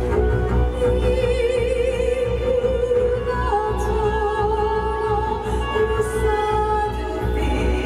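Show music: an operatic voice holding long notes with strong vibrato over orchestral backing, stepping up to a higher held note about halfway through, with a steady deep rumble underneath.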